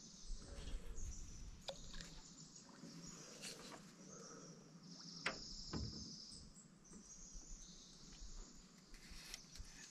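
Quiet outdoor ambience with a faint high trill about five seconds in that lasts about a second and a half, and a few light clicks from handling fishing tackle.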